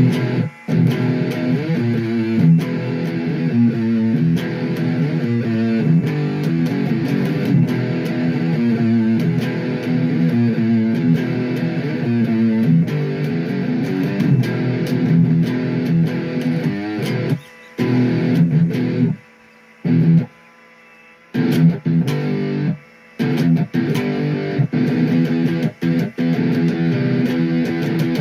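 Electric guitar played through an amplifier using the amp's built-in distortion: chords and riffs with a few short breaks about two-thirds of the way through.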